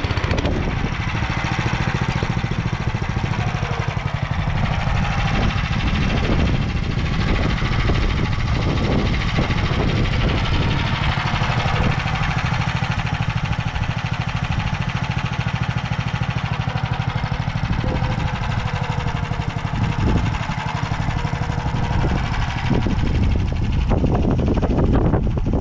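Motor Sich walk-behind tractor's engine running steadily under load while its narrow rotary tiller works the soil.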